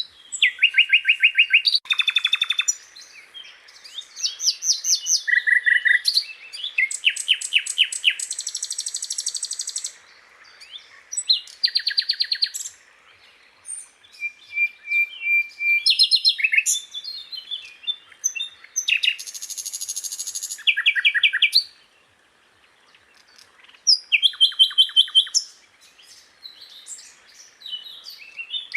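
Sikatan londo flycatcher singing a long, varied song: bursts of rapid high trills and buzzy chattering phrases broken by short pauses, with one thin steady whistle about halfway through.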